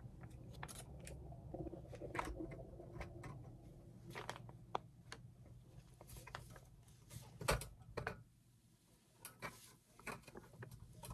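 Scattered light clicks and taps of a rolling garment rack's connector blocks and metal tubes being handled and fitted together, with the loudest knock about seven and a half seconds in.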